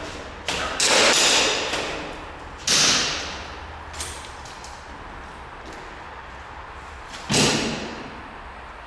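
Three loud bangs, about a second in, near three seconds and after seven seconds, each dying away over about a second, with a smaller sharp knock in between.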